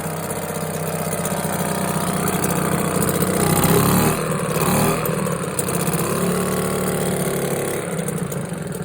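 British Seagull 40 Featherweight single-cylinder two-stroke outboard motor running steadily off load, with no propeller fitted; its speed picks up briefly about four seconds in, then settles back.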